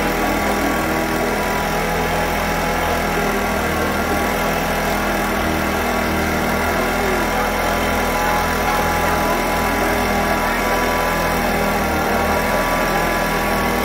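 An engine idling steadily, a continuous low drone with no change in speed.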